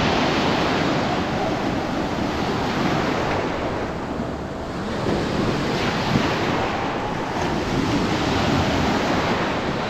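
Ocean surf breaking on a beach: a steady rushing wash that eases about halfway through and swells again.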